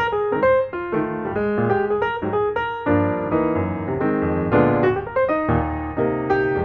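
Background piano music: a flowing melody of struck notes over chords.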